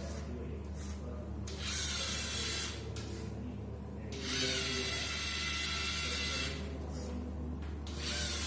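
LEGO Mindstorms EV3 large motors driving a LEGO car, whirring through their plastic gearing in three bursts: a short one, a longer one of about two seconds, then another starting near the end.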